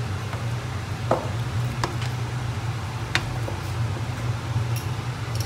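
A pot of prawn curry boiling on the stove: a steady low hum and hiss with a few sharp pops and clicks scattered through.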